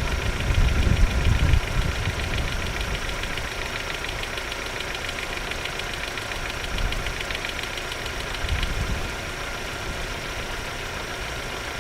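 Opel Omega B's X20XEV 2.0-litre 16-valve four-cylinder engine idling hot, with a fast, even ticking knock that swells and fades in waves. The owner takes the knock for the hydraulic lifters, and the on-board computer reports the oil level critically low.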